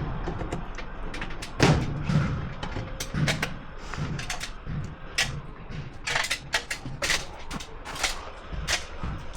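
Irregular clicks, knocks and rattles of hard tools and parts being handled, with the loudest knocks about a second and a half in and a run of sharper clicks in the second half.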